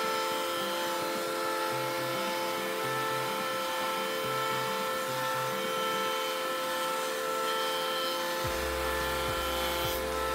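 Benchtop jointer (surface planer) running with a steady motor whine as a board is fed across its cutter block. A deeper rumble joins in near the end.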